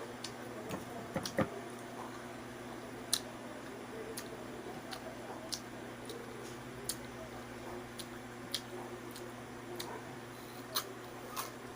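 Close-up mouth sounds of someone eating mango: wet smacks and sharp clicks scattered every second or so, over a steady background hum.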